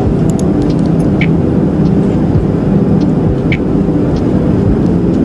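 Airliner cabin noise in flight: the steady drone of the jet engines and rushing air, heard inside the cabin, with a faint short tick about every two seconds.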